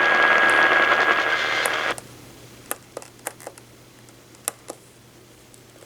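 Radio hiss with a steady whistle-like tone running under it for about two seconds, cutting off abruptly. After that, a few faint sharp clicks over a low background.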